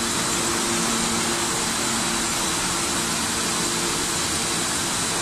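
Puffed rice snack production line running: a steady machine hiss with a constant low motor hum, unchanging throughout.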